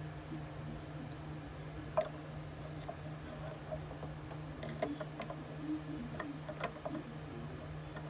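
Light clicks and knocks as a drill bit sharpener's collet block is handled and set onto the sharpener's metal table, a handful of separate taps, over a steady low hum.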